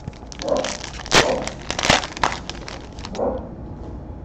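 Trading-card pack wrapper crinkling and crackling in the hands as a pack is opened, with a quick series of sharp crackles, loudest a little over a second in and around two seconds, then cards sliding against each other.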